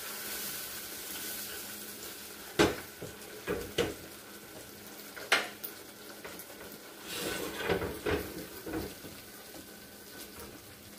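Ground beef and baked beans sizzling in a frying pan on a gas stove, with several sharp clinks and scrapes of a metal utensil against the pan as they are stirred.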